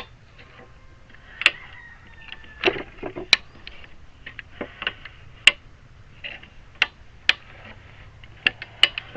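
Irregular sharp clicks and knocks, about a dozen, spaced unevenly, as the gear mechanism of a homemade bee-box lifter is worked by hand.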